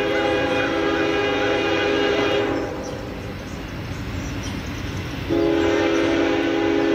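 Multi-chime train horn of an approaching train: one long blast that cuts off about two and a half seconds in, then, after a pause, another long blast starting about five seconds in, several notes sounding together as a chord.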